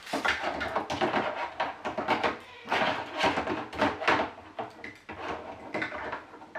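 Plastic toy pieces of a doll house being handled and fitted together: a busy run of rustling, clicks and small knocks.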